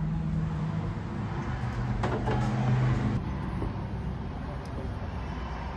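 A steady low mechanical hum with a few light clicks about two seconds in; the hum drops away about three seconds in.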